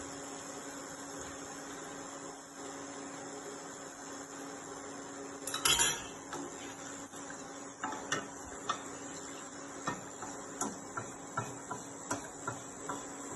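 Kitchen utensils on a stainless steel pot while vegetable broth is ladled into a risotto: a louder metallic clatter about halfway, then a wooden spoon stirring the rice knocks against the pot about twice a second. A steady electrical hum with a thin high whine runs underneath.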